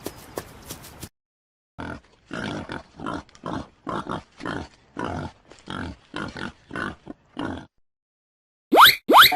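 An animal grunting, about a dozen short grunts at roughly two a second, followed near the end by two quick rising squeaks.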